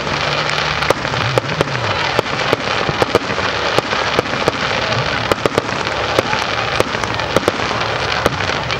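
Fireworks going off in quick succession: many sharp pops and bangs at an irregular pace, several a second, over a steady crackling hiss.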